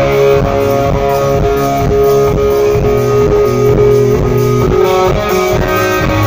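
Live hard rock band playing an instrumental passage with no vocals: electric guitar over bass guitar, in a steady loud concert mix.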